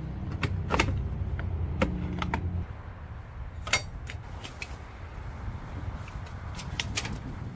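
Scattered clicks and light metallic clinks from tools and seat hardware as a truck seat is taken apart. A low hum runs underneath for the first couple of seconds and stops about two and a half seconds in.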